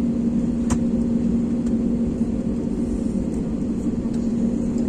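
Airliner cabin noise while taxiing: a steady low drone from the jet engines at idle, with a hum running through it. One brief click comes about three-quarters of a second in.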